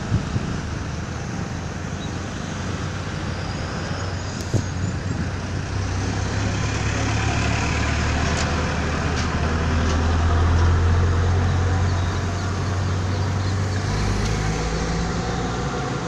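Road traffic at a roundabout: a steady wash of noise, with the low engine rumble of a passing vehicle building up towards the middle and easing off near the end.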